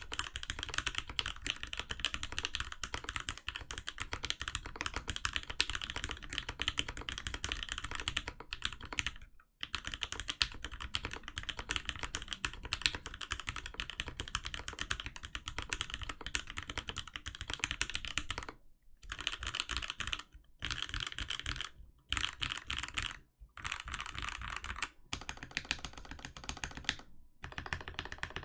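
Fast continuous typing on a mechanical keyboard with lubed JWK Pinokos linear switches, PBT keycaps and an acrylic plate, with a few short pauses in the second half.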